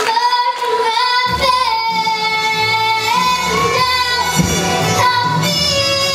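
A young girl singing solo, holding long notes that step up and down in pitch, over instrumental accompaniment whose low end comes in about a second in.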